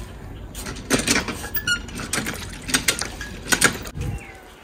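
Footsteps of sandals slapping on brick paving, a string of sharp steps, with a bird chirping briefly in the background.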